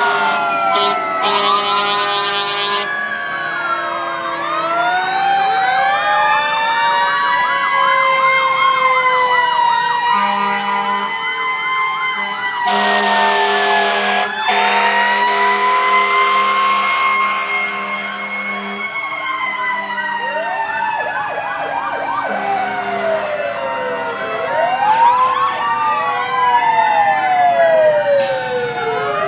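Several fire-truck sirens sounding at once, overlapping wails and fast yelps rising and falling in pitch. Steady horn blasts start and stop among them, with raspy stretches near the start, about halfway through, and near the end.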